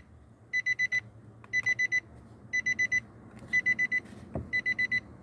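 Electronic beeper sounding in groups of four quick high beeps, repeating about once a second. A soft knock comes about four seconds in.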